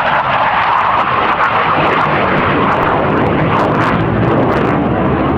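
Hawker Hunter Mk 58 jet flying past, its Rolls-Royce Avon turbojet a loud, steady rush of engine noise.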